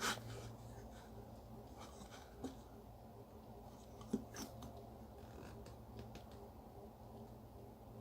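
A few small clicks and knocks of objects being handled on a workbench, the sharpest right at the start and two more about four seconds in, over a faint steady low hum.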